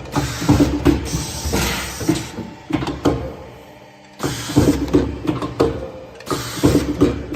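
Automatic veneer patching machine running, punching out defects in veneer and setting in patches: a rapid series of mechanical clacks and knocks, a few a second. It falls quiet about three seconds in and starts again a second later.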